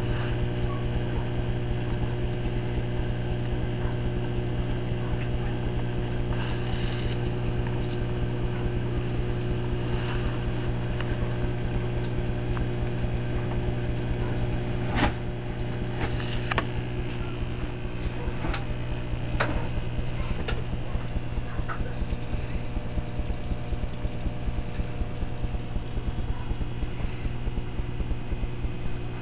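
Aquarium hang-on-back filter and powerhead running: a steady low electric hum over a hiss of moving water. A few sharp clicks come about halfway through.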